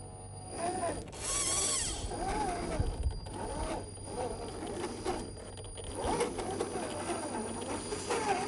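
RC crawler's electric motor and gear drivetrain whining, its pitch rising and falling in short bursts as the throttle is worked. A loud rush of noise comes about a second in.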